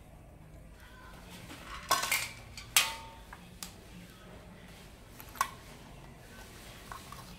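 Hard plastic parts of a solar LED lamp clicking and knocking as the clear cover is handled and fitted onto the housing: a cluster of clacks about two seconds in, the loudest a moment later, then a few lighter clicks.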